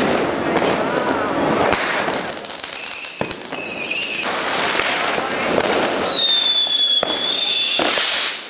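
New Year's Eve fireworks: a dense, continuous crackle of firecrackers and rockets with sharp individual bangs. About six seconds in, a high whistling firework sounds for nearly two seconds.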